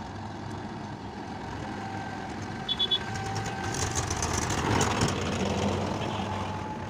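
Diesel engine of a Mahindra tractor pulling a loaded trolley, running steadily and passing close, loudest about five seconds in. A quick run of three short, high beeps sounds near three seconds in.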